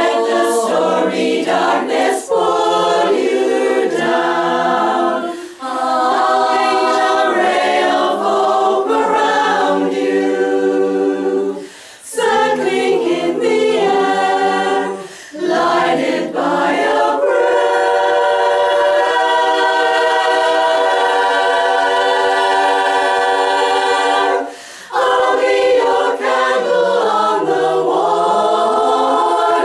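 Women's barbershop chorus singing a cappella in four-part close harmony, phrases separated by short breath pauses, with one long sustained chord in the latter half.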